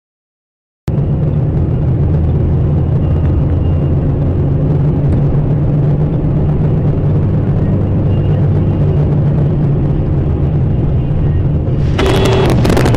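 Steady low drone of a car's engine and road noise heard from inside the cabin through a dashcam, starting suddenly about a second in. About a second before the end a sudden loud burst of noise breaks in over it.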